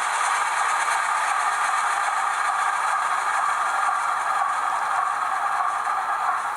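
HO-scale model diesel locomotive and its train running on the layout's track, a steady rattling clatter of wheels and wagons on the rails.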